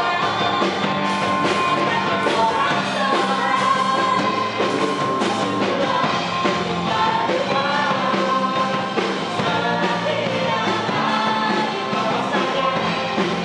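Live band playing a contemporary praise-and-worship song: a man singing lead over electric bass, drum kit and keyboard, with women singing backing vocals.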